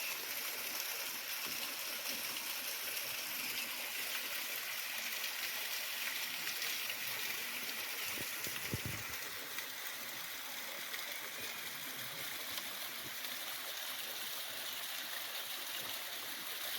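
Mountain stream rushing over rocks, a steady, even rush of water, with a brief low thud about halfway through.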